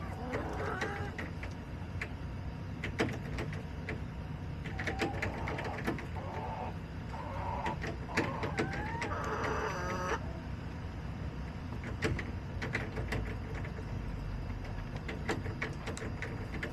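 Backyard hens clucking and calling in short bouts, a few notes gliding up in pitch, with scattered sharp taps in between over a steady low rumble.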